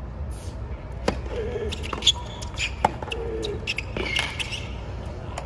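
Tennis ball struck by racquets during a point on a hard court, a run of sharp pops, the loudest about two and three seconds in, over a low steady crowd rumble.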